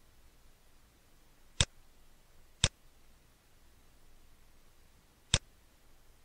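Three sharp computer mouse clicks: two about a second apart, then a third nearly three seconds later.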